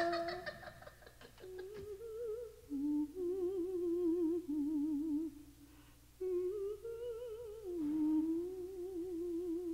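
A single voice humming a slow, wavering tune, with a brief pause a little past the middle.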